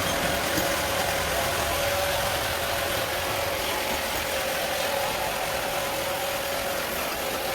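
Sawmill band saw running steadily, a constant hum with a steady tone over a hiss.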